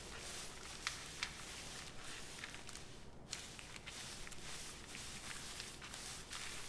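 Footsteps of two people walking slowly over a gritty, rubble-strewn floor: soft, irregular scuffs and small crunches.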